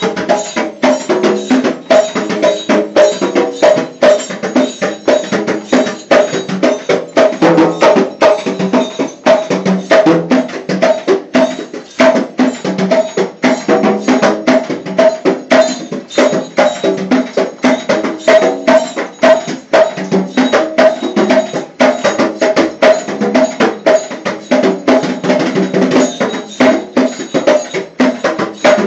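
Improvised drumming on a stainless steel kitchen sink: a fast, unbroken rhythm of ringing strikes.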